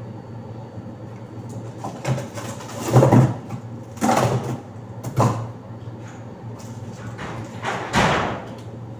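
Plastic ice-cube trays clattering and scraping as they are set into a refrigerator's top freezer compartment, in several short bursts, over a steady low hum.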